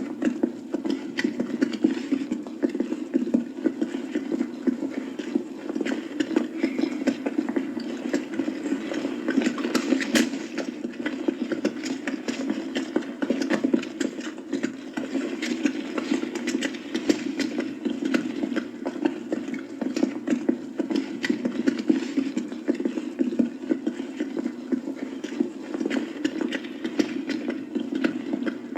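Hooves clip-clopping on a street, with many quick hoof strikes throughout over a steady background of crowd voices.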